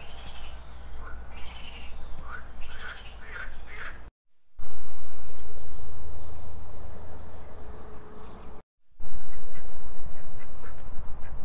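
Birds calling with short, sharp calls, then wind rumbling on the microphone at the lakeshore, with ducks quacking near the end.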